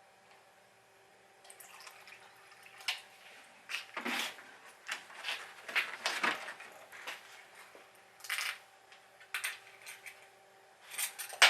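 Zinc-plated steel nuts and bolts clinking as they go into a plastic dish of dilute muriatic acid, with splashes and trickles of liquid. Irregular clicks and short splashes, the busiest stretch around four to six seconds in.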